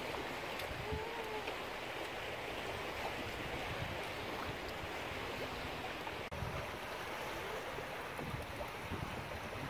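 Calm sea washing and lapping against a stone seawall and shore, a steady wash of surf.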